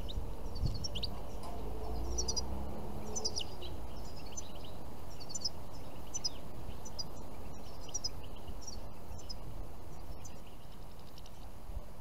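Small songbirds chirping: short, high calls repeated every second or so, over a low steady background rumble.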